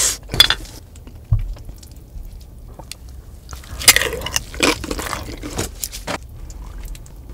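Close-miked eating: a tortilla chip loaded with burrito-bowl toppings bitten with a loud crunch about four seconds in, among smaller wet chewing sounds and the clink and scrape of a fork in the bowl. A low thump comes about a second in.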